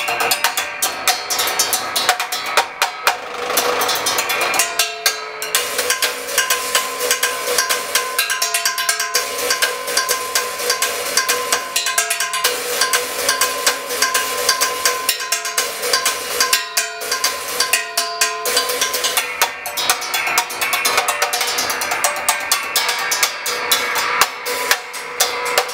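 Homemade percussion instrument, a tall metal coil mounted on the black metal base of a late-1940s Magic Chef stove, struck rapidly with thin wooden sticks. A dense, fast clatter of hits with metallic ringing pitches sounding underneath, broken by a few short pauses.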